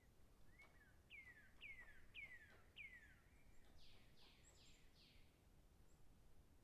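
Faint bird song: a run of five whistled notes, each sliding down in pitch, followed by four higher, fuzzier notes that also fall.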